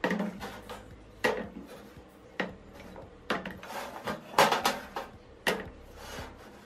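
Small bicycle pump parts, red plastic fittings and bits of metal, dropped one after another into a plastic tray, giving a series of separate clattering knocks about a second apart.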